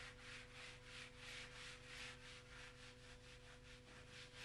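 Fine abrasive paper rubbing down dry undercoat on wooden woodwork by hand, faint quick back-and-forth strokes at about four a second.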